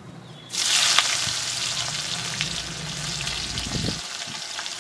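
Sliced onions dropped into hot spiced oil in a metal kadai: a loud sizzle bursts up about half a second in, peaks around a second, then settles into steady frying.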